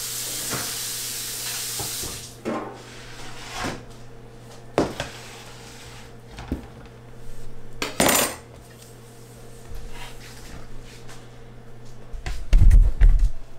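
Water running at the sink stops about two seconds in. Then a stainless steel mixing bowl clanks and knocks several times as it is handled and set down on a counter, with a heavy low thump near the end.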